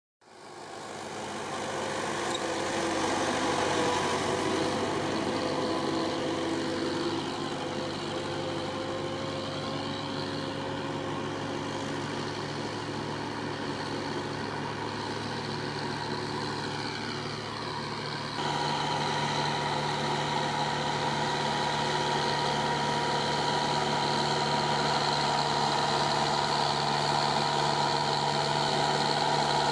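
Kubota tractor's diesel engine running steadily under load while dragging a land-leveling blade across dry soil. It fades in at the start and turns a little louder and brighter about 18 seconds in.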